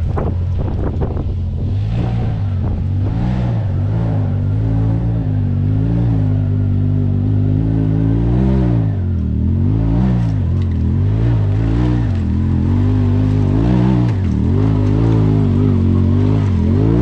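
Can-Am Maverick X3 side-by-side engine running under varying throttle while driving over rough trail. Its pitch rises and falls again and again, every second or two.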